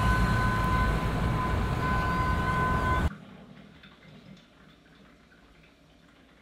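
Cabin noise of a moving city transit vehicle: a steady low rumble with two steady high tones over it, which cut off abruptly about three seconds in. Then quiet kitchen room tone with a few faint small clicks.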